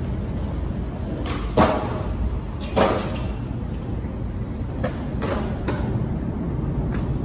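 Skateboards on a concrete skate park: two sharp board clacks about a second and a half and three seconds in, then several lighter clacks, over a low steady rumble.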